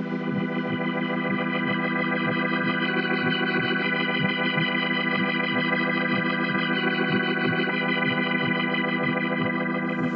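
Background music: sustained chords over a steady low beat, about two to three beats a second.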